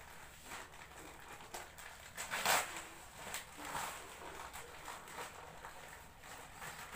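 Plastic courier mailer bag being handled and opened by hand: irregular crinkling and rustling, loudest about two and a half seconds in.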